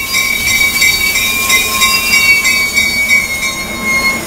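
Commuter train cars rolling along a station platform, the wheels giving a steady high-pitched squeal.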